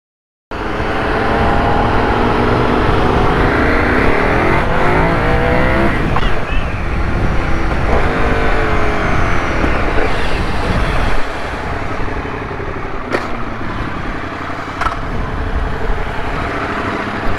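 KTM 990 Super Duke's V-twin engine pulling through the gears on the road, its pitch climbing and dropping as the bike accelerates and shifts, over a steady rush of wind and road noise. The sound starts about half a second in.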